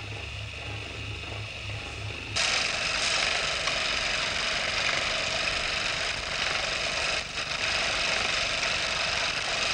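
A faint low hum, then a small motor starts abruptly about two seconds in and whirs steadily.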